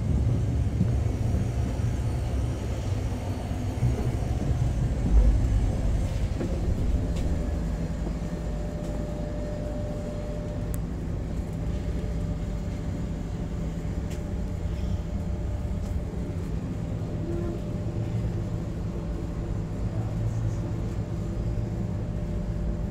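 Steady low rumble of VIA Rail's Canadian passenger train running, heard from inside a railcar, with a brief low thump about five seconds in.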